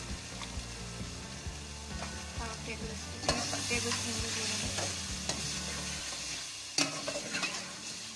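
A metal spoon stirs chicken, potatoes and freshly added ground spices frying in oil in a steel pot, with sizzling and scattered clinks and scrapes of the spoon against the pot. A sharp knock sounds about seven seconds in. A low steady hum runs underneath and stops about six seconds in.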